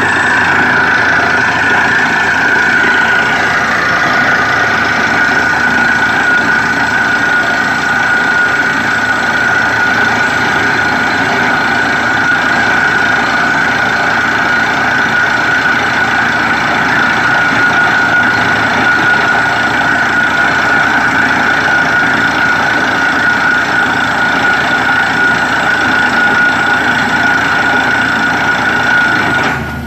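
Borewell drilling rig and its air compressor running steadily under load, a loud even mechanical noise with a steady high whine on top.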